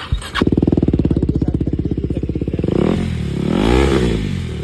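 KTM Duke 390's single-cylinder engine starting on the electric starter and running through a freshly fitted Akrapovic full exhaust system. It gives one rev blip, rising and falling, about three seconds in, then settles back to idle.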